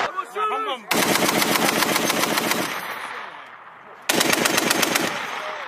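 Machine gun firing in bursts: the tail of one burst at the start, a burst of nearly two seconds about a second in, and a shorter burst near the end, each trailing off in echo.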